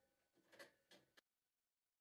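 A few faint short clicks and rattles in the first second or so, then near silence.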